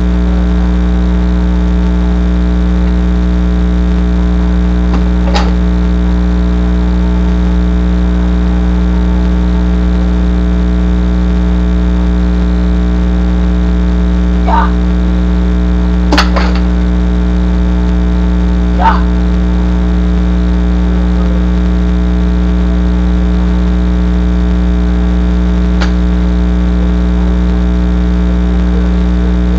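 Steady loud low electrical hum with a stack of overtones, typical of mains hum on the recording, with about five sharp wooden knocks from pine practice boards being struck and handled. The loudest knock comes about halfway through.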